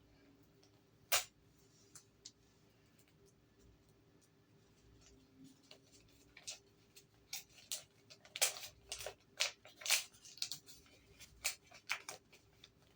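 Hands opening a small taped-up package: one sharp click about a second in, then from about six seconds a busy run of crackles, clicks and tape or paper tearing.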